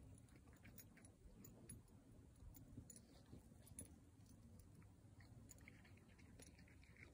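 Near silence: faint outdoor background with scattered faint clicks.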